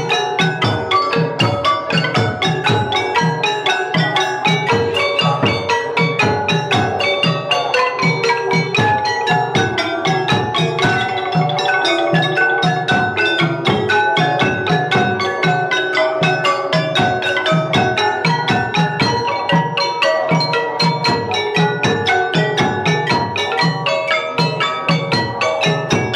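Background music played on mallet percussion, with xylophone-like melody notes, bell tones and a steady beat.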